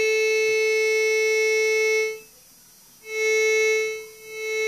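MD-5008 metal detector's audio signalling a target: a steady buzzy tone as the search coil detects a cell phone held over it. It sounds for about two seconds, breaks off, and comes back about three seconds in.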